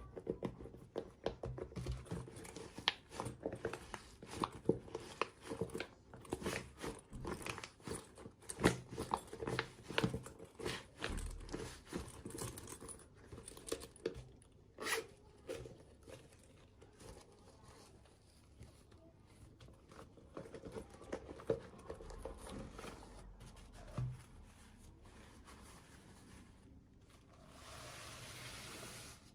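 Packaging being torn open and crinkled by hand: a dense run of crackles and rips that thins out in the second half.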